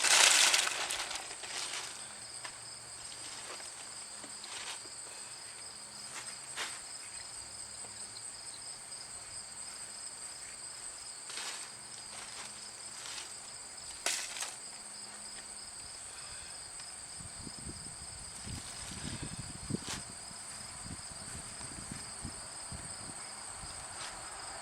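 Insects trilling steadily in two high, unbroken tones. There is a loud rush of noise in the first second and a few sharp clicks later on.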